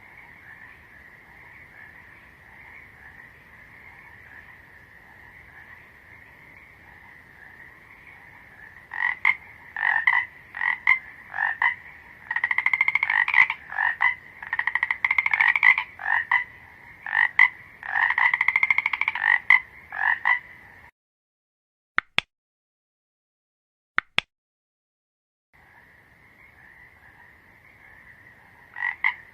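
Frogs croaking. A steady background chorus is joined about nine seconds in by a run of loud, repeated close croaks. It cuts to dead silence with two short clicks, then the chorus returns near the end.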